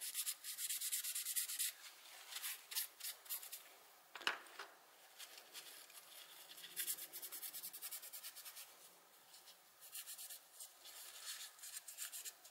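A paper tissue rubbing and rustling against a small carbon motor brush as it is wiped clean with isopropyl alcohol, in faint, irregular scratchy strokes. The strokes thin out in the middle and pick up again near the end, with one sharp click about four seconds in.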